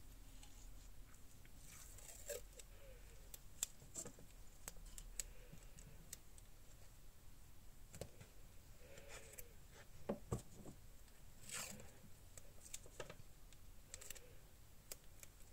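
Faint handling of paper and stickers on a journal page: scattered soft clicks and taps, with a few short rustles of paper, the longest about two-thirds of the way through, as pieces are placed and pressed down.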